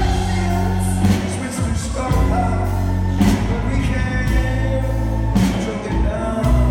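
Live rock band playing loudly with a singer, sustained bass and drum hits about once a second.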